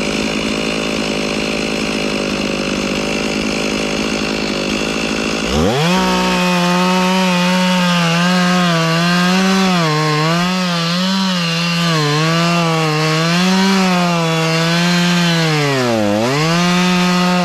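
Two-stroke chainsaw running at high revs while cutting into a tree trunk, its engine pitch wavering up and down as the load on the chain changes. It bogs down sharply once near the end and picks back up.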